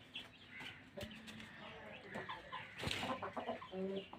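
Chickens clucking, a scatter of short calls that come thicker in the second half.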